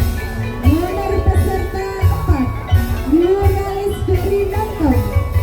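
Tongklek ensemble music: a gliding sung melody over bamboo percussion and a steady, pulsing low drum beat.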